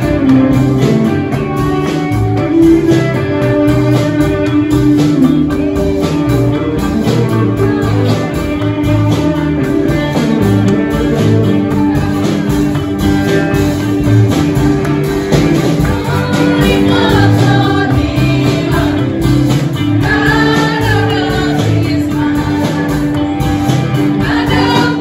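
Live band playing an upbeat Christmas worship song with a steady beat. Women's voices sing along, standing out more clearly from about two-thirds of the way in.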